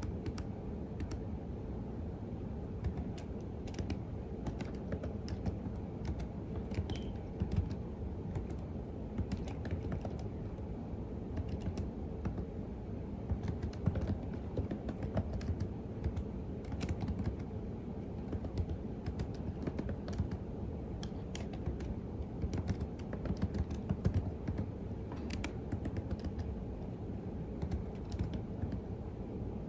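Continuous typing on a computer keyboard: an irregular stream of key clicks, at times in quick runs, over a steady low background rumble.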